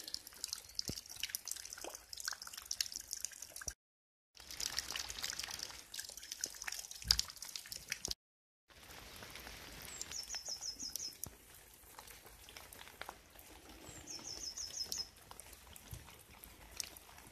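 Rainwater dripping and trickling from a roof gutter and a downpipe outlet in steady rain, a stream of irregular splashing drips. A bird gives a short run of quick high notes twice in the second half.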